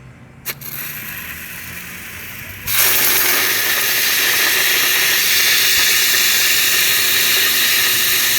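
Compressed air hissing out of the drain valve at the bottom of a homemade compressor water trap as it is opened to purge collected water: a click, a moderate hiss, then about three seconds in a much louder, steady hiss as the valve opens further.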